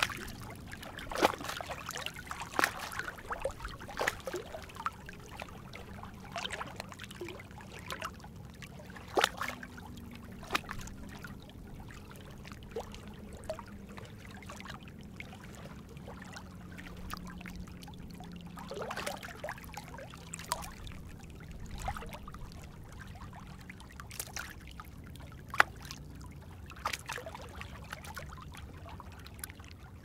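Small waves lapping and splashing irregularly against the rocks at the water's edge. A faint low drone sits beneath the lapping through the middle stretch.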